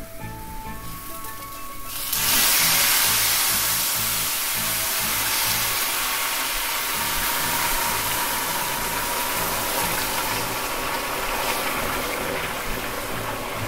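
Stock poured from a saucepan into a hot frying pan of sautéed rice: a loud hissing sizzle bursts up about two seconds in as the liquid hits the pan, then slowly eases as it settles toward a simmer.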